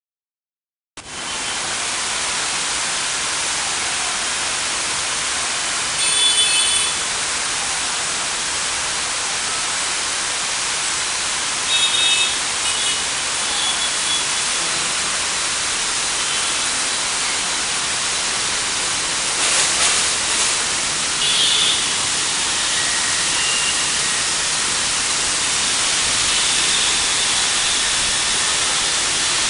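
Heavy rain hissing steadily, starting about a second in, with short vehicle horn honks from traffic several times (around a quarter, two fifths and two thirds of the way in).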